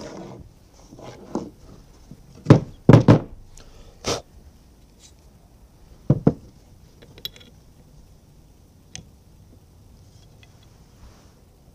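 Knocks and clunks of a steel drum brake shoe and a rotary tool being handled on a wooden deck: about half a dozen sharp knocks, the loudest a quick cluster a few seconds in, then only light ticks.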